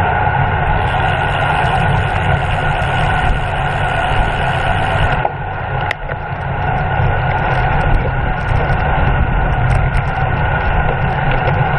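Wind rushing over the microphone of a camera riding on a racing bicycle at speed: a loud, steady rumble, with a single sharp click about six seconds in.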